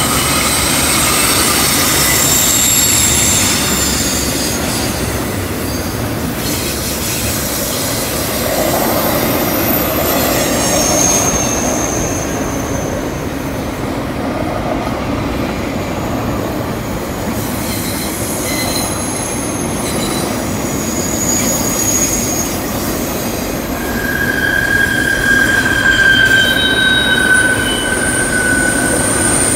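Double-stack container well cars of a CN intermodal freight train rolling by on a curve: a steady rumble of wheels on rail, with wheel flanges squealing in high, drawn-out tones that come and go, a lower and stronger squeal setting in near the end.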